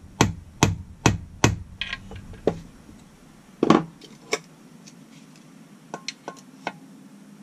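A small hammer tapping on metal chainsaw engine parts: about six quick taps, a little over two a second, stopping about two and a half seconds in. A louder knock follows, then another, then a few light metallic clicks near the end.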